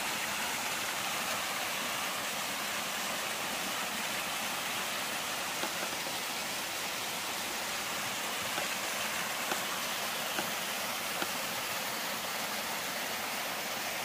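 Small waterfall spilling over rock: a steady rush of splashing water, with a few faint clicks.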